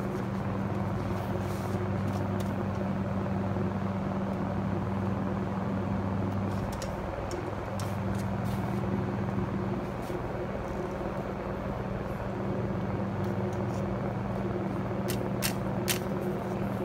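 A steady low mechanical hum with a few sharp clicks near the end.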